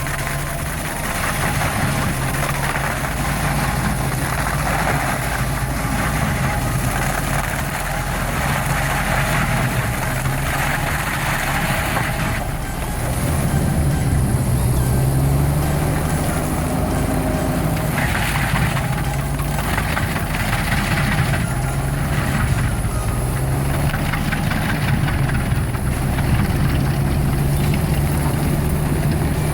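Stump grinder's engine running under load while its cutting wheel grinds into wood, the grinding noise swelling and easing off in turn. The engine note shifts about halfway through.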